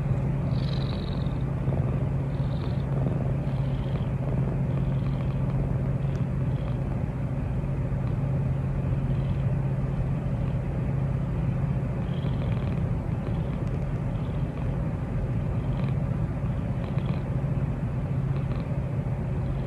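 Brown tabby domestic cat purring steadily and loudly, held close to the microphone.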